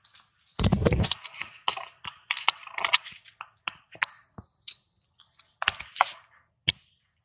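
Dry leaves and debris crunching and crackling as the monkeys move and scrabble over them: an irregular run of sharp clicks, with a heavier rustling crunch about half a second in.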